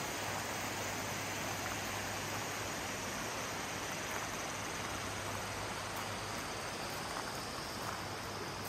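Steady rushing of stream water, with a faint low hum underneath.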